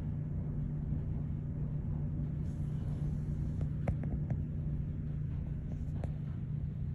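A steady low hum, with a few light clicks about halfway through and another about six seconds in.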